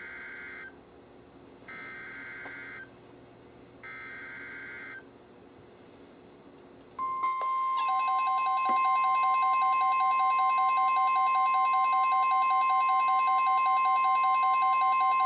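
NOAA Weather Radio Emergency Alert System activation: three short bursts of SAME header data tones about two seconds apart, then about seven seconds in the steady 1050 Hz warning alarm tone starts, with a faster pulsing beep sounding over it, signalling that a new warning follows.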